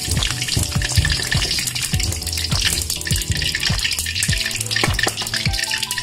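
Hot cooking oil sizzling and crackling in a wok right after fried potato wedges are taken out, with instrumental background music underneath.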